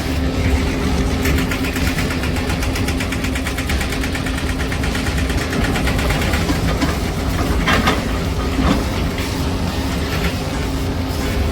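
Diesel engine of a large hydraulic excavator, a Kobelco SK520, running steadily with a low hum. A few short harsh scraping noises come in the second half, as the bucket works against rock.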